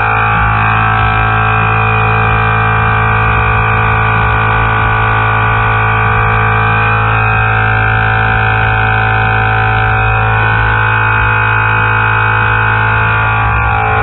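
Aftermarket train horn with chrome trumpets on a 2005 Chevrolet pickup, blowing one long, steady chord of several notes over a low hum. The upper notes shift slightly about ten seconds in.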